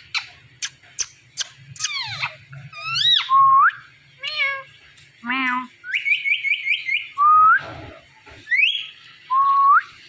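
Indian ringneck parakeet whistling and chattering: a few sharp clicks first, then a string of swooping whistles, a quick run of about six short notes in the middle, and several rising whistles that level off and hold.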